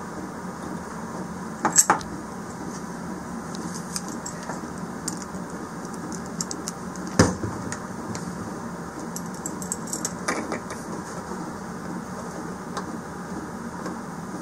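Scattered clicks and clinks of small metal parts and tools being handled, with a sharp knock about seven seconds in, over a steady low background hum.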